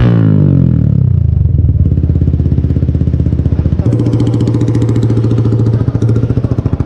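Yamaha R15's single-cylinder engine settling from a rev blip to a steady idle, its exhaust note coming through a VMAX slip-on canister hand-held on the new elbow for a sound check. About four seconds in the note turns louder and fuller as the canister is pulled off the elbow.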